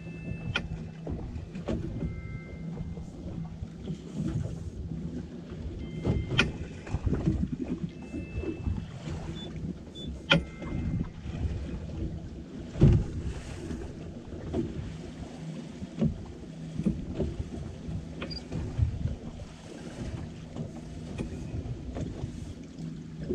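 Steady low motor hum aboard a center-console fishing boat, with wind and water washing around it and a few sharp knocks.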